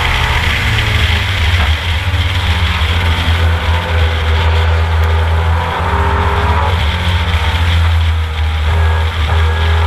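Ford Capri race car's engine heard from its own onboard camera, running hard at steady revs with wind rushing past. The note dips briefly near two seconds in and again near six seconds in.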